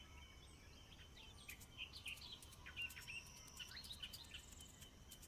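Faint background of small birds chirping in short scattered calls, with a few light clicks.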